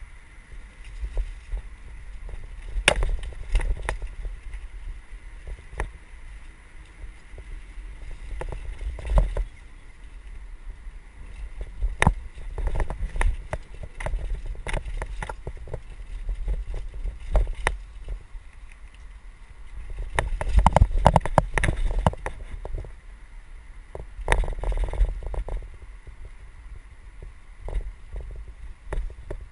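Mountain bike ridden along a rough dirt singletrack, heard through a helmet-mounted GoPro HD Hero: a steady low rumble with frequent knocks and rattles as the bike goes over roots and bumps. The clatter is densest about two-thirds of the way in and again shortly after.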